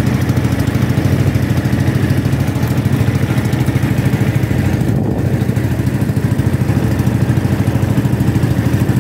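Engine of a motorized outrigger fishing boat running steadily under way, a loud, even drone with a fast, regular pulse.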